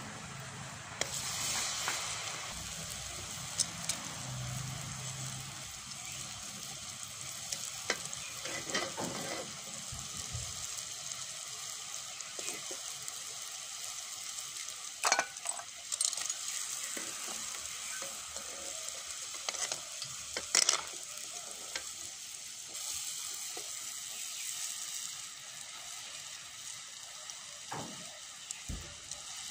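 Kokis batter deep-frying in a metal pan of hot oil over a wood fire, a steady sizzle throughout. A few sharp taps and clicks break through it, the loudest about halfway through and again about two-thirds of the way in, as the pieces are turned with sticks in the pan.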